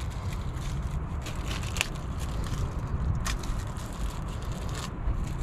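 Gloved hands handling ignition coil parts, giving scattered small clicks and crinkles over a low steady rumble.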